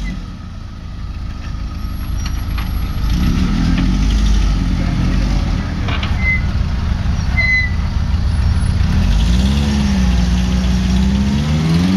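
Off-road Jeep's engine revving up and down under load as it claws up a muddy hill, its front tyre spinning and throwing mud. The engine pitch swells twice and climbs again near the end.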